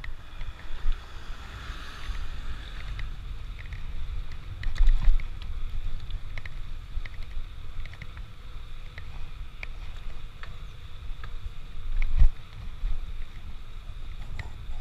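Ride noise from a moving bicycle: steady wind buffeting on the microphone with a low rumble, scattered small clicks and rattles, and two heavier jolts about five and twelve seconds in.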